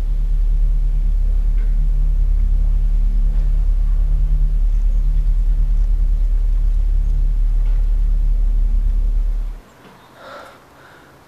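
Loud, steady low rumbling drone made of several deep tones held together, cutting off suddenly near the end.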